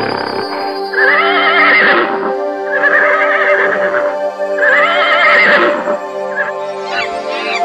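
Horse whinnying three times, each call about a second and a half long with a quavering, wavering pitch. Steady background music runs underneath.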